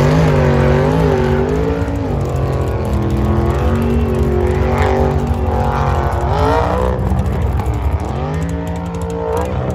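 Drag racing car engines running loudly at the starting line, the revs rising and falling in swells, as a race car launches down the strip.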